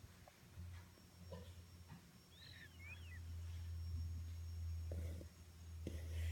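A sleeping baby snoring softly: low snores on her breaths, with one long snore in the middle. A brief high chirp sounds about two and a half seconds in.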